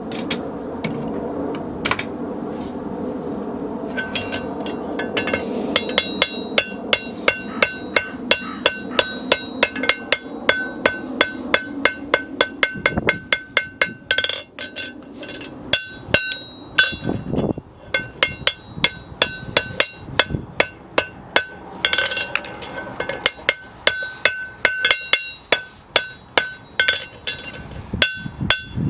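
Farrier's hammer striking metal in quick runs of blows, about two to three a second, each blow ringing at the same bright pitch. The hammering starts about four seconds in and thins out for a few seconds past the middle.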